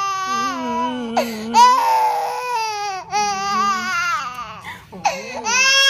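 Six-month-old baby crying hard in long, high wails, breaking off for breath a few times: crying in pain after a vaccination injection.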